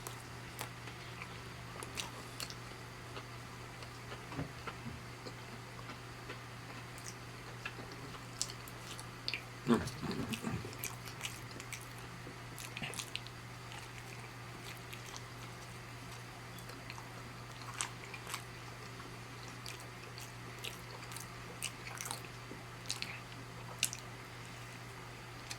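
Close-miked eating of plant-based chicken: biting and chewing with scattered short mouth clicks, and a louder burst of mouth noise about ten seconds in.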